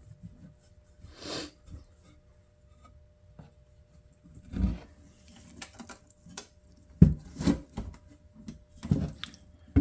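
Handling of the chronometer's case as it is fitted back together: a brief rub, then scattered knocks and clicks, the sharpest a single knock about seven seconds in.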